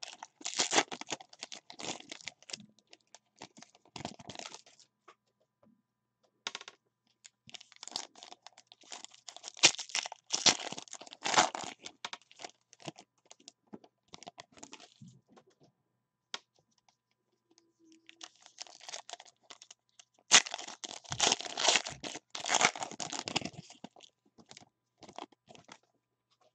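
Foil trading-card pack wrappers (2019 Panini Certified football) being torn open and crinkled by hand, in three spells of ripping and rustling with pauses between.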